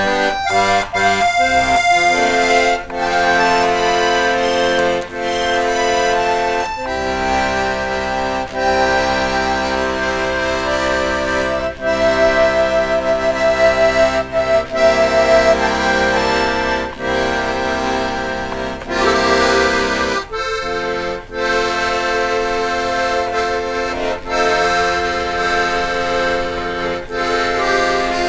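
Accordion music playing, a tune in held chords and melody notes with no voice.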